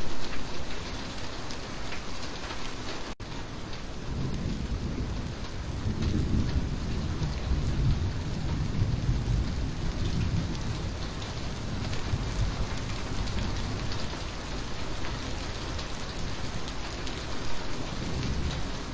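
Steady rain falling, with a low rumble of thunder that swells about six seconds in and fades out over several seconds.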